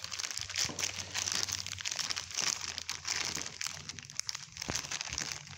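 Thin clear plastic wrapping crinkling and rustling as it is handled and pulled off, with one brief knock a little before the end.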